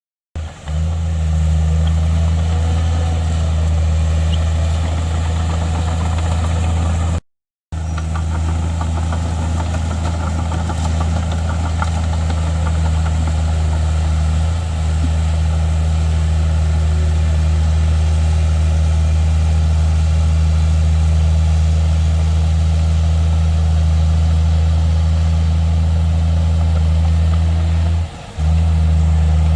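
Heavy earthmoving machine's diesel engine running steadily with a deep drone. The sound cuts out for a moment about seven seconds in and dips briefly near the end.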